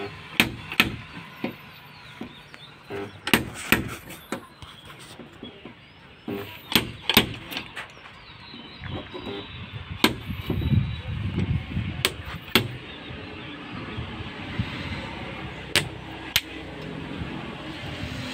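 Electric dent puller working a car door panel: a string of sharp, irregular snaps and clicks, some in quick pairs, as the gun's tip is set against the sheet metal and pulled, over a steady background hum.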